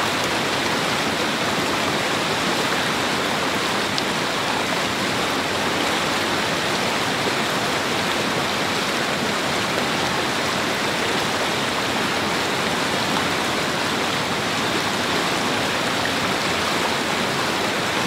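Fast-flowing river rushing steadily.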